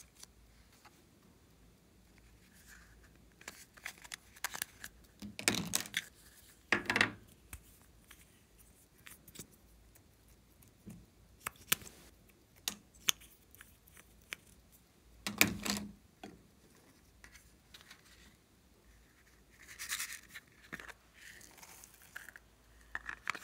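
Small handling sounds of plastic cosmetic tubes over a glass bowl of slime: sparse clicks and taps, with three louder knocks or rubs. Near the end comes a short rustle as flakes are sprinkled onto the slime.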